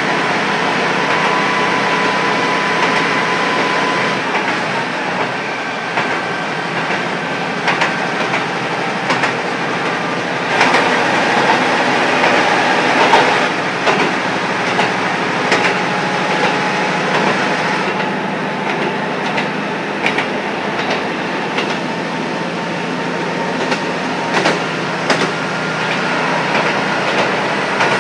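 Onboard running sound of a JR Kyushu KiHa 125 diesel railcar under way, heard from a seat directly above its diesel engine with the window slightly open. The engine and wheels run steadily, with sharp clicks of the wheels over rail joints, busiest and loudest around the middle and again near the end.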